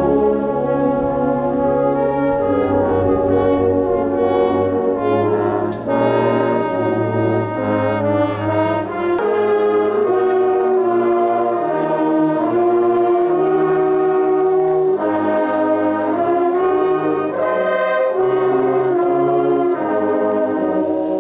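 Military brass band with trombones and trumpets playing a slow national anthem in long held chords.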